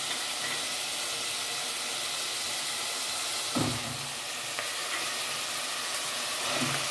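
Chopped onion sizzling in oil in an aluminium pot, a steady hiss. A dull knock about halfway through and a smaller one near the end come as raw minced meat is tipped into the pot from a plate with a wooden spoon.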